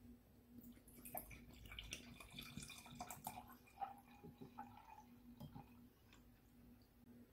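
Red cherry ade poured from a plastic bottle into a glass tumbler, the liquid splashing and trickling into the glass for about four seconds, starting about a second in. A faint steady hum lies underneath.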